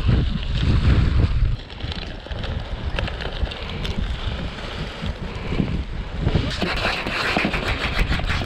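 Wind buffeting the microphone, with a heavy rumble at first, while the nylon canopy of a kite is unrolled and handled. From about two-thirds in, a dense crackling of the fabric joins the wind.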